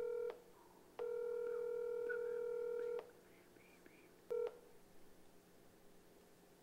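Telephone ringing tone of an outgoing call heard over a phone's speaker: a steady electronic tone that cuts off just after the start, a two-second ring starting about a second in, and a short clipped ring about four seconds in, then quiet room tone.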